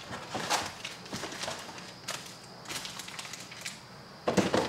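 Packs of trading cards being pulled out of a cardboard hobby box: scattered small rustles and clicks of wrappers and cardboard, with a louder burst of handling near the end.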